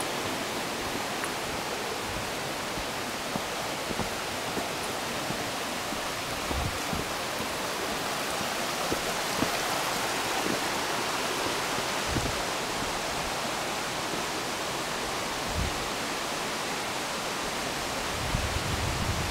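Steady rush of a rocky mountain stream and waterfall: an even hiss of flowing water, with a few soft low thumps now and then.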